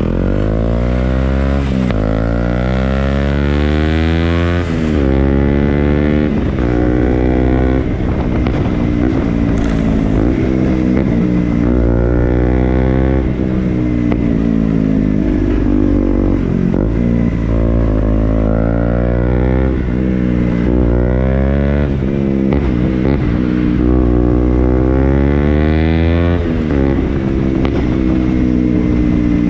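KTM Duke motorcycle engine revving and accelerating again and again, its pitch climbing and then dropping back, many times over.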